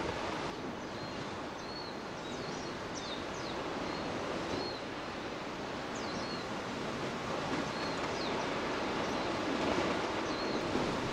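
Steady, even roar of an erupting lava fissure, with short high chirping calls repeating faintly over it.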